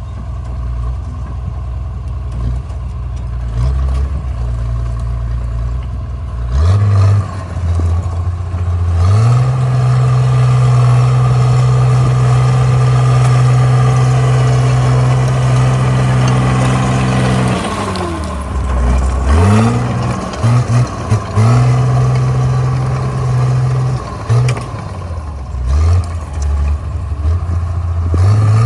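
Komatsu D37P bulldozer's diesel engine running low, then revving up about a quarter of the way in and holding high revs under work for about eight seconds. The revs then drop, rise and fall in several short blips, and pick up again near the end.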